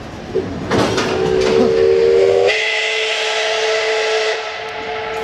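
Steam whistle of the L-class steam locomotive L-3095 blowing one long blast of several tones over a hiss of steam. It starts about a second in, steps up slightly in pitch about halfway through, and thins out near the end.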